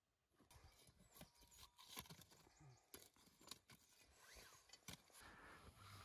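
Faint, irregular crackling and popping of a freshly lit wood fire catching, over a soft hiss.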